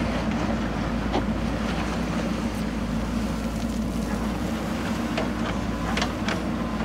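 JCB 3DX backhoe loader's four-cylinder diesel engine running steadily under load as the backhoe arm digs and lifts a bucket of soil. A few short sharp knocks sound over it, mostly near the end.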